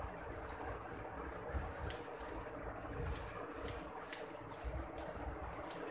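Hairdressing scissors snipping through a held-out section of long hair, a series of short crisp snips starting about two seconds in.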